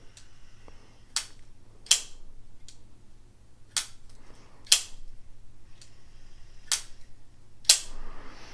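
Petrified Fish Havrog liner-lock folding knife on a ball-bearing pivot being flicked open and shut over and over: about six sharp snapping clicks, roughly a second apart, with a few fainter clicks between them.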